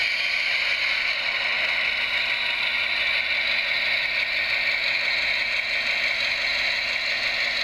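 HO scale F7A locomotive's ESU LokSound decoder playing a steady EMD 567 diesel running sound through its small speaker, mixed with the whir of the model's motor and wheels as it pulls a train of double-deck coaches along the track.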